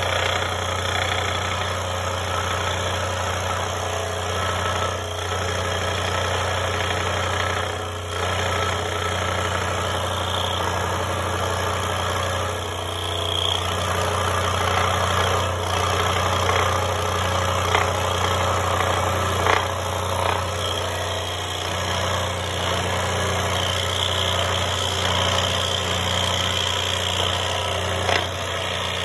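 DeWalt 16-inch scroll saw running steadily, its reciprocating blade cutting through a thick wooden spoon blank: a constant low hum under the steady noise of the cut.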